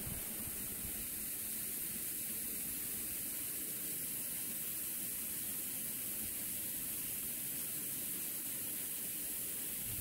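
Steady, even hiss with no distinct events.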